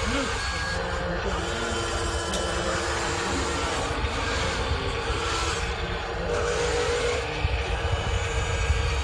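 Small electric drive motors and gearboxes of a radio-controlled scale skid steer whining at shifting pitches over a steady low rumble.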